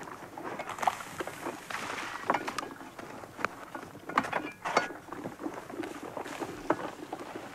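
Footsteps crunching in snow with irregular knocks and clatters of wooden tubs and tools being handled around a steaming cauldron during outdoor work.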